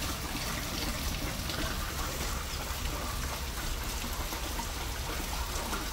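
Steady rain falling, with rainwater from the roof running out of a downpipe into a drain.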